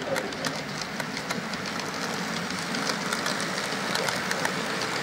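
Model freight train running past on the layout's track: a steady running noise with frequent sharp clicks of the wheels over the rail joints.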